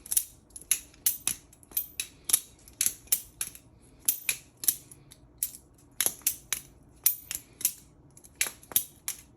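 Balisong (butterfly knife) being flipped open and closed quickly and repeatedly, its handles and blade clicking and clacking together in a steady rhythm of about two to three sharp metallic clicks a second.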